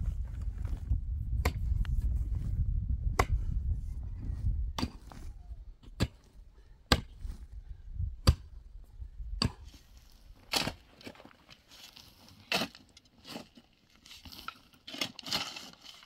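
Repeated sharp blows of a hand tool, about ten of them, roughly one every second or so. A low rumble underneath fades out about four seconds in, and scraping and rustling fills the gaps near the end.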